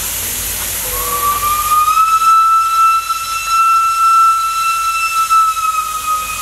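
Pacific steam locomotive's whistle blowing one long note over the hiss of escaping steam. It rises in pitch as it opens about a second in, holds steady, and dips slightly near the end.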